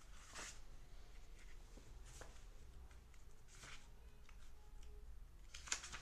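Near silence: quiet room tone with a low steady hum and a few faint, brief hissing sounds.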